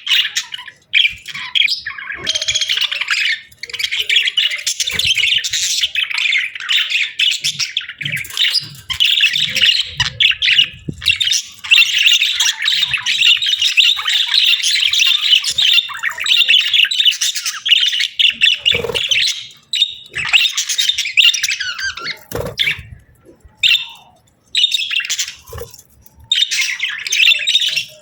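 Budgerigars chattering and warbling almost without a break, mixed with short squawks, with a few brief pauses in the second half.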